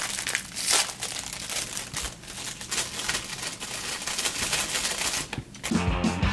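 Plastic snack wrapper crinkling and rustling irregularly as it is handled. Rock music with guitar starts near the end.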